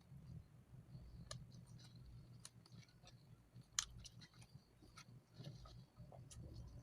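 Faint, sparse crisp clicks and crackles from eating and handling fried chicken close to the microphone, with one sharper click near the middle.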